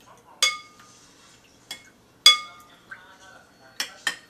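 Kitchenware clinking: about five sharp knocks of utensils against dishes, each ringing briefly. The loudest is a little over two seconds in, and two come close together near the end.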